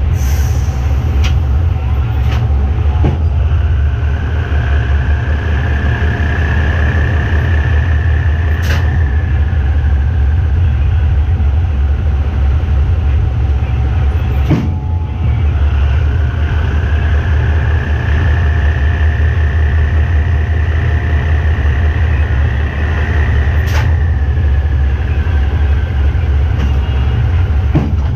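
GE diesel locomotive running under way, a heavy steady low engine drone with a higher whine that swells and fades twice and a few sharp clicks.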